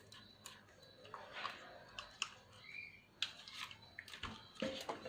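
Scattered sharp clicks and light knocks of small laptop parts being handled and fitted together during reassembly, with crinkly handling noise between them.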